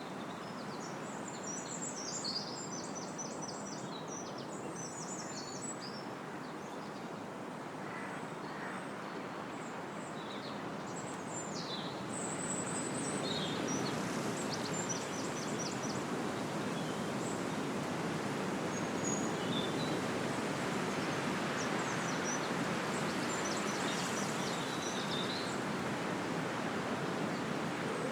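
Wind blowing through trees, a steady rush of leaves and branches that gets a little louder about halfway through. Small songbirds sing over it throughout in high, quick chirps and rapid trills.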